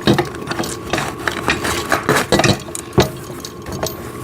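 Sissy squat machine pads and parts being handled and fitted: scattered light knocks, clicks and rubbing, the loudest knock about three seconds in.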